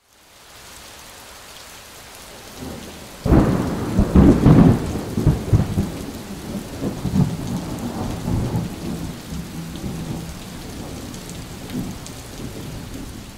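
Thunderstorm: steady rain hiss that fades in, then a sudden thunderclap about three seconds in, followed by a long rolling rumble that slowly dies away under the rain.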